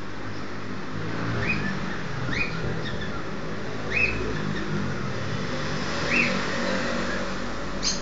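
Cockatiel calling: five short rising chirps spaced one to two seconds apart over a steady low background rumble. These are the calls of a male coaxing his mate into the nest box.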